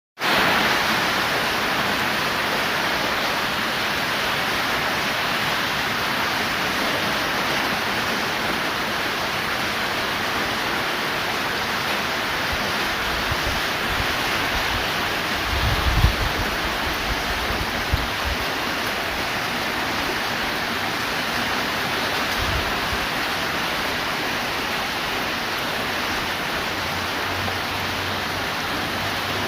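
Heavy rain falling steadily, a dense even hiss, with a few brief low rumbles and one sharp thump about halfway through.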